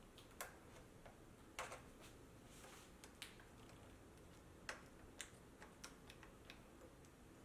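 Faint, irregular small clicks and taps from hands working on a laptop's screen and its display cable connector, about eight sharp ticks spread unevenly over the few seconds.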